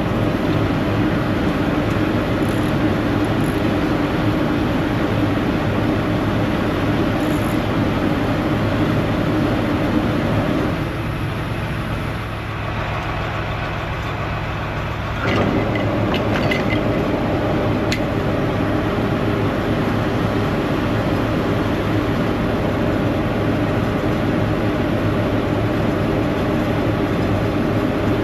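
Detroit Diesel Series 60 14-litre engine in a Freightliner Columbia running steadily at idle, with a constant low hum. Near the middle the sound thins out for a few seconds, and a few light clicks follow.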